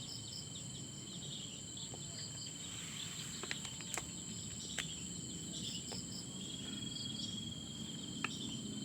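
Steady high-pitched chirring of crickets or similar insects. A few sharp clicks are heard: two close together about halfway through, one a little later, and one near the end.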